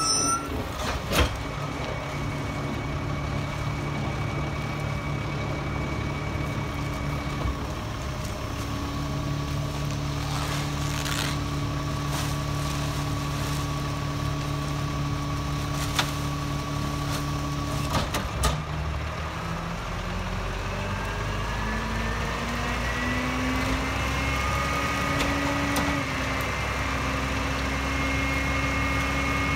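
Rear-loader garbage truck's engine idling steadily, with a few sharp knocks from bags being thrown into the hopper. About two-thirds of the way through, the engine speeds up over several seconds and holds at the higher speed, as it does when the packer's hydraulics are engaged.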